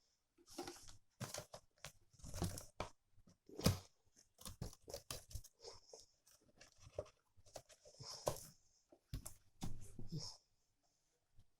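Product packaging being opened and handled: irregular tearing, crinkling and sharp clicks of cardboard and plastic.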